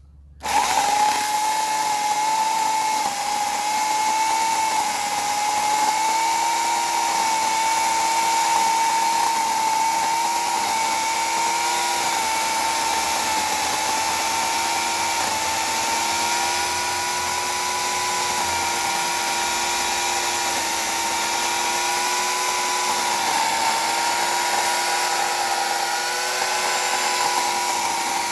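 A 14-inch Portland electric chainsaw starts up about half a second in and runs steadily with a high motor whine, its pitch sagging slightly now and then.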